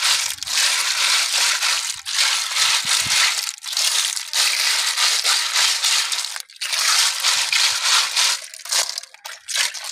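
Hands rubbing and churning a heap of small freshwater snails on a concrete floor: the shells make a loud, dense crackling clatter as they grind against each other and the concrete. It comes in several bouts with brief breaks and thins to scattered clicks near the end.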